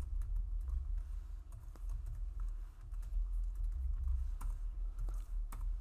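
Typing on a computer keyboard: keystrokes clicking irregularly in short runs, over a low steady hum.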